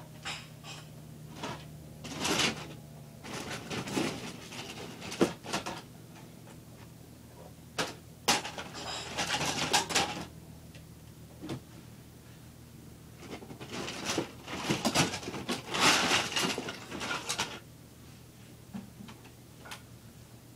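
Toy train-set pieces clattering, knocking and scraping as they are handled and set up to build the engine sheds, in several irregular bursts.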